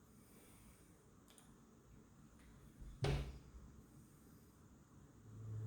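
Quiet room tone broken by a single sharp knock about three seconds in, with a couple of fainter ticks before it. A low, steady backing-music tone begins to swell in near the end.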